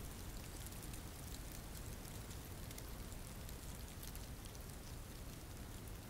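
Steady rain falling, a soft even hiss with many scattered drop ticks.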